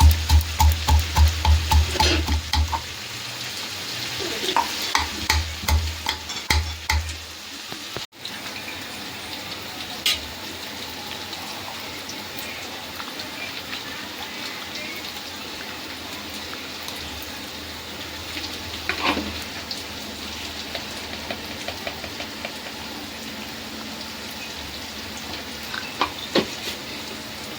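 Food frying in a pan, stirred and scraped with a spatula at about four strokes a second in the first few seconds and again a little later. After that the frying settles into a steady sizzle with an occasional clink.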